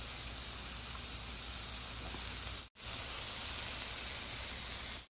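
Cheese-stuffed ground-beef patties sizzling steadily on a hot griddle, just dribbled with soy sauce. The sizzle cuts out for a moment about two and a half seconds in, then carries on.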